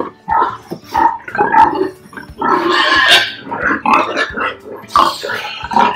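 Pigs grunting in a run of short, irregular calls, with one longer, louder call about halfway through.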